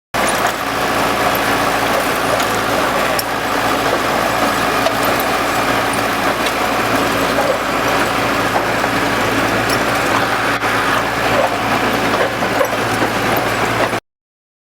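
Large vehicle engine running steadily with a low hum, without any clear rise or fall in speed.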